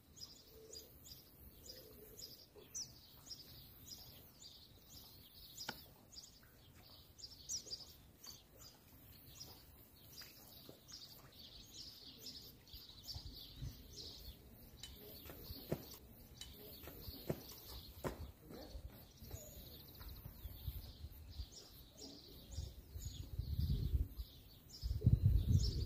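Small birds chirping continuously in quick, high notes, with a few sharp clicks. Low rumbling thumps come near the end.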